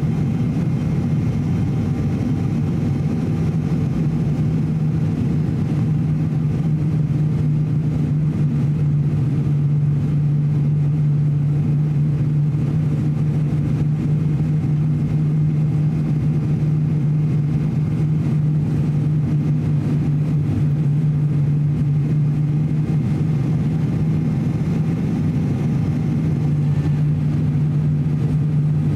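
Cabin noise of an ATR 42-600 turboprop in flight, heard beside the engine: its Pratt & Whitney Canada PW127 turboprop and six-blade propeller give a steady drone with a strong, even low hum.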